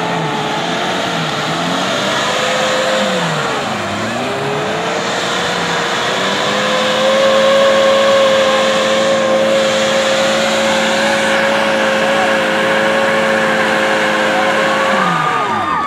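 Off-road 4x4 engine revving hard in a mud pit: the revs climb, dip briefly, then are held high and steady for about eight seconds before the throttle is let off near the end and the pitch drops quickly.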